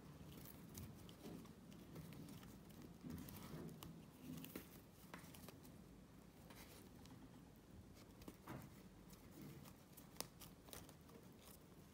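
Faint rustling and soft scattered ticks of paper yarn drawn through the stitches by a crochet hook.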